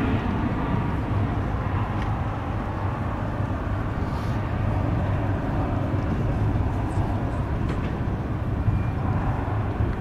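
Boeing P-8A Poseidon's twin CFM56-7B turbofan engines heard in a display flypast: steady jet noise with a deep rumble, easing slightly at the start and then holding even.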